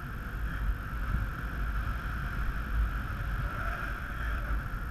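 Steady wind rush over the camera microphone in paraglider flight: a continuous low rumble with a band of hiss above it.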